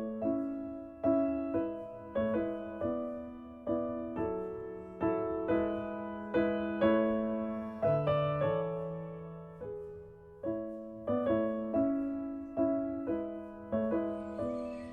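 Background piano music: a slow run of gently struck notes and chords, each dying away. Birds start chirping faintly near the end.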